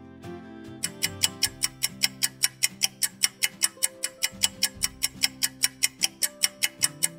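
Fast clock-ticking sound effect, about five sharp ticks a second, starting about a second in and stopping just before the end, laid over background music.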